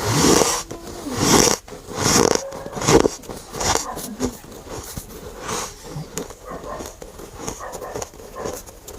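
Mouth chewing dry, powdery freezer frost: a series of crunchy, squeaky bites, with four or five big crunches in the first four seconds and then quicker, softer chewing.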